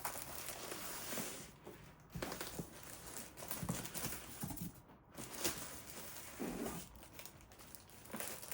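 Packaging crinkling and rustling in irregular stretches as the doll's body is lifted and worked out of its wrapped box.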